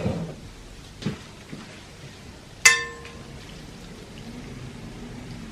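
Kitchen dish sounds while serving pasta into a deep plate: a soft knock about a second in, then one ringing clink of a utensil or dish on china near the middle, over a faint steady hiss.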